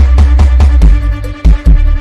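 Brazilian funk music with a heavy, sustained sub-bass line and hard kick hits, played loud.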